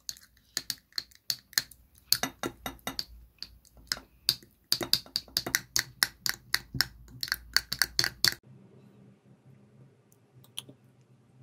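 Metal fork clinking and scraping against the inside of a small glass jar while stirring a coddled egg down through it: quick, irregular clinks that stop about eight seconds in, leaving only a few faint ticks.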